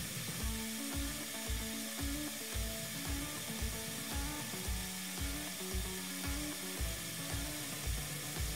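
Background music with a steady beat of about two thumps a second, over the steady hiss of a gravity-feed spray gun spraying paint.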